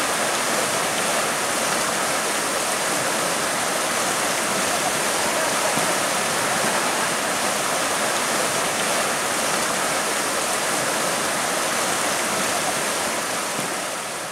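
Steady rush of flowing river water, fading out near the end.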